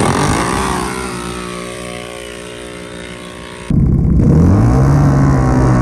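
Sport ATV launching down a dirt drag strip and pulling away, its engine note dropping in pitch and fading over about three and a half seconds. Then, abruptly, another quad engine runs loud and close, rising briefly in pitch and then holding steady.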